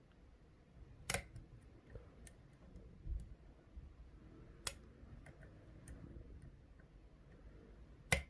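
Faint, scattered clicks and ticks of a lock pick working the pin stack of an ASSA 600 cylinder during single pin picking, with sharper clicks about a second in, near the middle and just before the end. Pin 2 is binding here, and the lock's tight tolerances keep it from setting.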